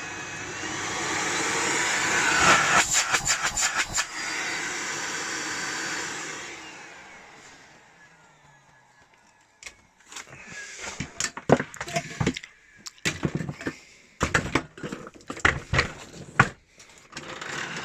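Miele Complete C3 cylinder vacuum cleaner running at full power, with a rapid series of clicks a couple of seconds in, then switched off and its motor spinning down. After that comes a run of irregular clattering knocks, typical of the power cord being rewound into the cleaner.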